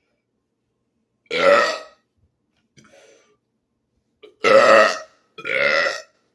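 A man burping deliberately, three loud belches: one about a second in, then two more in quick succession near the end, each lasting well under a second with a pitched, throaty tone.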